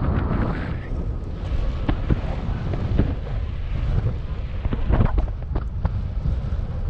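Wind buffeting the microphone: a steady low rumble broken by several sharp pops, the loudest about five seconds in.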